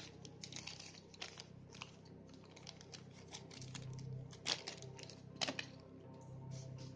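Small clear plastic bag crinkling and crackling as it is handled and opened by hand, with two sharper crackles about halfway through, over a faint low hum.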